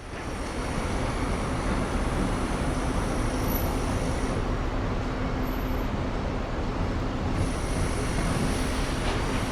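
City ambience: a steady wash of traffic noise that fades in at the start, with faint thin high-pitched tones coming and going above it.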